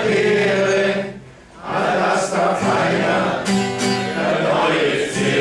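Acoustic guitar strummed while voices sing a slow sing-along refrain, drawing out long notes. The music breaks off briefly about a second in, then the guitar and singing start again.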